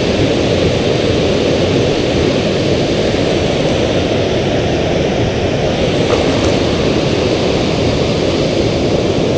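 Steady, loud rush of river water pouring over a spillway.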